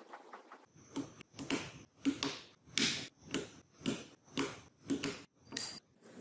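Small magnetic balls clicking and rattling against each other in a run of short strokes, about two a second, starting just under a second in.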